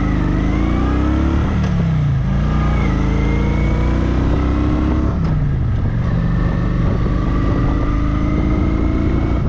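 Motorcycle engine running under way, its pitch climbing as it accelerates and falling back twice, about two and five seconds in, as gears change.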